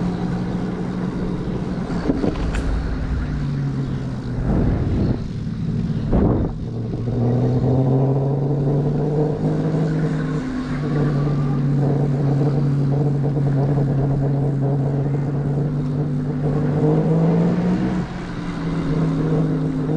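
Huck Cycles Stinger 3000 electric moped's motor humming as it cruises at low speed in eco mode, its pitch dipping and rising with speed. There are a couple of short low rumbles of wind on the microphone around five to six seconds in.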